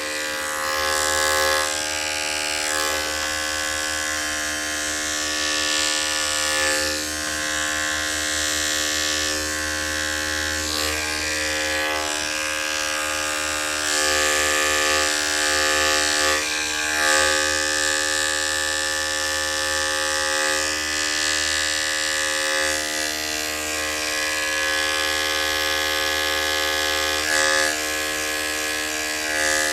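Electric dog grooming clippers running steadily, a constant motor buzz whose upper hiss swells and eases now and then.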